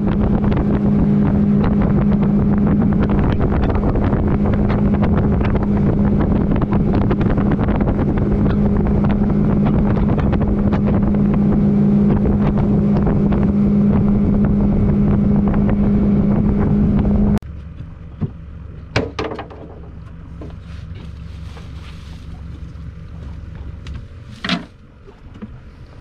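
Boat's outboard motor running steadily at cruising speed with wind buffeting the microphone; the drone cuts off abruptly about seventeen seconds in, leaving a quieter stretch with a few sharp knocks.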